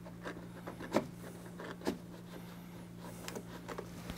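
A few faint clicks and taps from handling an engine's oil filter housing cap as it is eased slowly up out of its housing, over a steady low hum.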